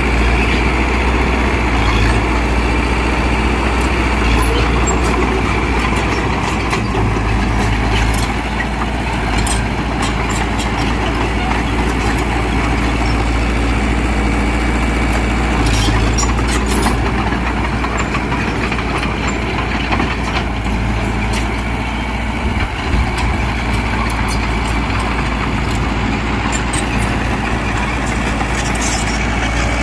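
Heavy diesel earthmoving engine running steadily, with a few sharp metallic clanks.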